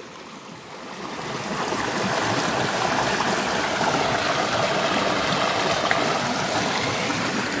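Small rocky stream splashing down a little cascade into a pool: a steady rush of flowing water that swells up over the first couple of seconds and then holds even.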